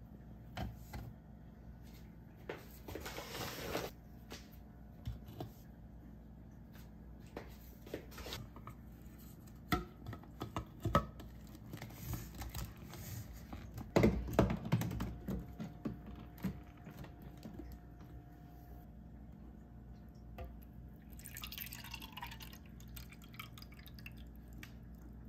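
Flour tipped from a bowl into a Rotimatic's flour container with a brief sliding hiss, then scattered knocks and clicks as the plastic container and its lid are handled, loudest about halfway through. Near the end, water pours into the clear plastic water container.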